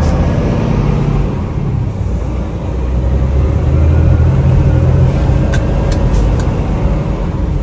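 Semi-truck driving along a wet, slushy highway: a steady low engine and road rumble, with a few faint clicks about three-quarters of the way through.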